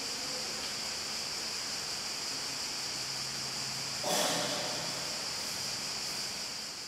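Steady hiss of room tone, with one brief, sudden louder noise about four seconds in that fades over about a second.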